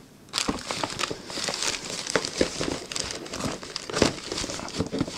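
Clear plastic bag crinkling and rustling as a hand rummages in it, starting about half a second in and going on as a dense crackle of many small crackles.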